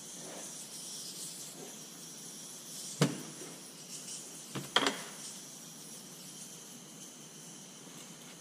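Hand hammer tapping on a Detroit 3-53 engine front cover on a workbench: one sharp tap about three seconds in, then two or three quick taps about a second and a half later.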